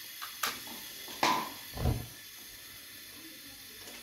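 Gas stove burner being lit under a kadhai: a sharp click, then a noisy burst a little after a second in, and a low thud near two seconds as the gas catches.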